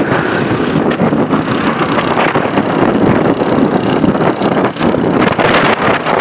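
Loud, steady rush of wind buffeting the microphone while riding a motorcycle, mixed with road noise.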